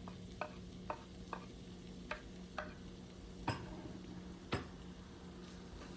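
A spoon or spatula knocking and scraping in a frying pan while ground beef, onion and bell pepper are stirred: about eight light knocks at uneven intervals, the loudest two past the middle, over a faint sizzle.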